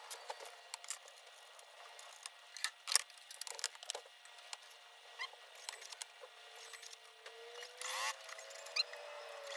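Fast-forwarded workshop sounds of a computerized sewing machine being serviced: scattered clicks and knocks of hands and tools on the machine's parts, pitched up by the speed-up, with a faint rising tone in the last couple of seconds.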